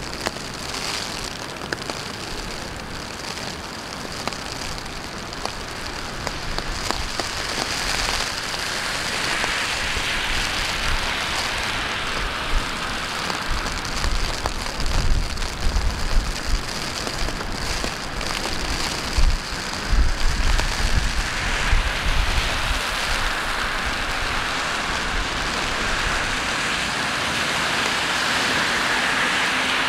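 Steady rain falling, mixed with city traffic noise. A low rumble of traffic swells through the middle stretch.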